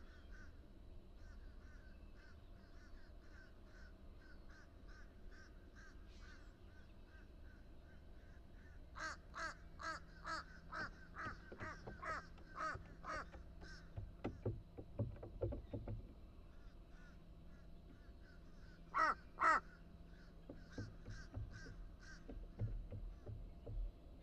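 Crow cawing in repeated series of short calls, about two a second, with the two loudest caws a little past the middle. Several low thumps come between the call series.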